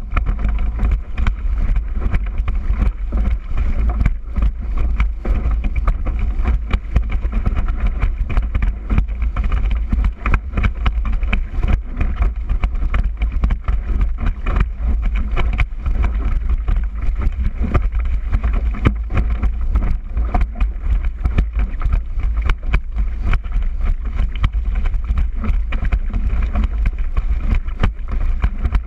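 Wind rumbling steadily over a kitesurfer's action-camera microphone, with the board slapping and hissing over the chop in quick, irregular hits.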